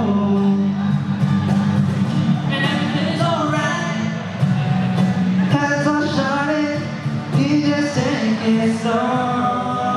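A vocal group singing a pop-rock song with instrumental backing, the voices in harmony.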